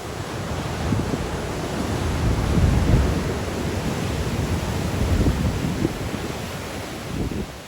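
Sea waves breaking and washing on the shore in strong wind, with wind buffeting the microphone. A steady rush that swells about a third of the way in and eases toward the end.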